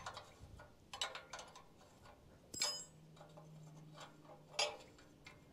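Steel spanner clinking on a nut and bolt as a lock nut is worked loose: four separate metallic clicks, the loudest about two and a half seconds in.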